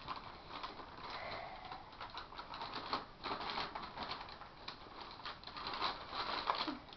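Brown paper-bag puppets being handled: paper crinkling and rustling, with many small scattered clicks and knocks.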